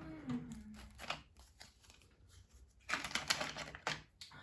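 Small craft tools and plastic pieces being handled and set down, clicking and clattering, with a dense rattle about three seconds in. A short falling hum from the person near the start.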